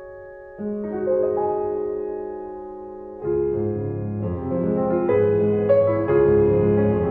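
Background piano music: slow, sustained chords, with a new chord about half a second in and fuller, lower-pitched chords from about three seconds in.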